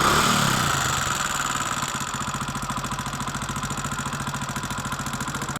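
Hero Splendor's single-cylinder four-stroke engine idling with a fast, even ticking pulse, easing down in speed over the first couple of seconds. The tick comes from loose tappets (excess valve clearance), the cause of the engine's bad 'tik tik' noise.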